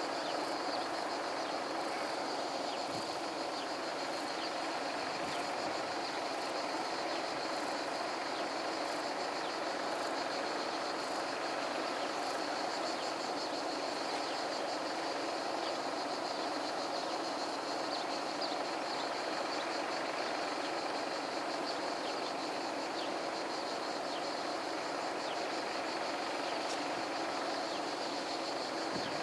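Steady outdoor background: a constant mid hum and a high hiss with faint fine ticking, unchanging throughout; no train is passing.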